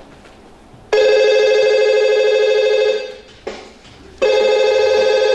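Telephone ringing twice, each ring a steady trilling tone lasting about two seconds, with a pause of just over a second between them.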